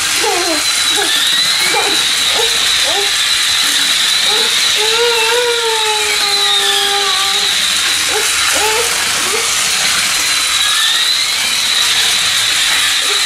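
Wired remote-control toy airliner driving across a tiled floor: a high steady whine that dips in pitch now and then, over a loud hiss, with short warbling tones underneath.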